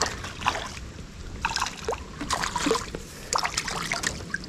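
A hooked crappie splashing and thrashing at the water's surface as it is reeled in toward the boat: a run of short, irregular splashes.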